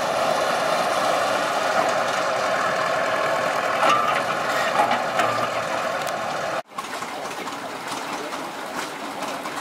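Engine of a vintage cable-operated power shovel running steadily as the machine swings its dipper. It cuts off abruptly about two-thirds of the way through, and a quieter background follows.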